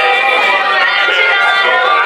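A woman singing a pop song into a handheld microphone over backing music, loud and steady, with little bass.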